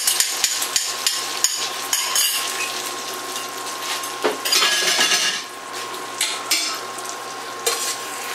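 Beaten egg poured into a hot stainless steel frying pan of meat, mushrooms and peppers, sizzling steadily, with a louder surge of sizzle about halfway through. Rapid clinks and clicks of utensil against bowl and pan come in the first couple of seconds, with a few more knocks later on.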